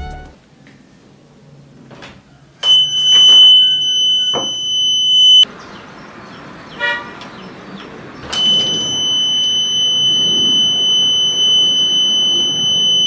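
Homemade door alarm's buzzer sounding a steady, shrill high-pitched tone twice: about three seconds, then, after a pause, about five seconds.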